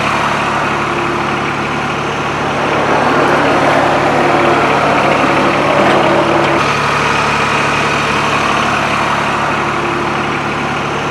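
Branson 2205h compact tractor's diesel engine running steadily while the backhoe hydraulics lift on the stabilizers to lower the backhoe into its cradle. The sound swells for a few seconds in the middle, with a steady whine over the engine note, then settles back.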